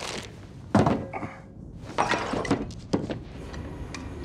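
Fight-scene sound effects: a string of sharp thuds and knocks, the loudest about a second in, with more strikes and some breaking clatter around two to three seconds in.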